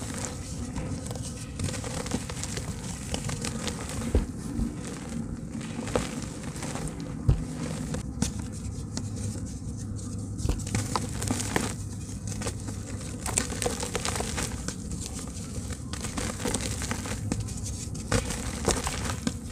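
Soft handmade slabs of dried red dirt crumbling and breaking apart in wet hands, with continuous crackling, scattered sharp clicks and crumbs pattering into a basin of water.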